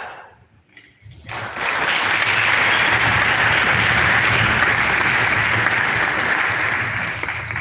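Audience applauding. The clapping starts after a brief lull about a second in, holds steady for about six seconds and eases off just before the end.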